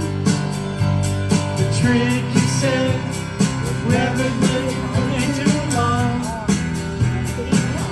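Music: a song with guitar, a steady beat and a melodic line that rises and falls, most plainly in the middle.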